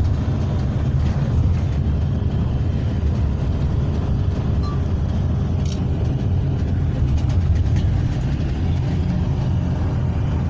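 Steady low rumble of engine and road noise heard from inside a moving road vehicle's cabin.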